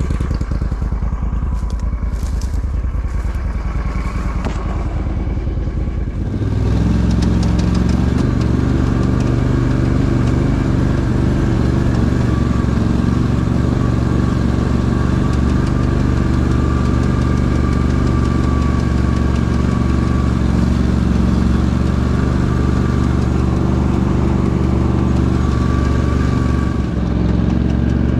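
Argo amphibious all-terrain vehicle's engine running as it drives. About six seconds in, the engine note steps up and holds steady and louder.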